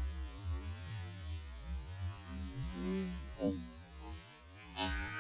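Slowed-down recording played back at low pitch: a deep, steady hum with slow, drawn-out warbling sounds over it. A sharp noise comes near the end.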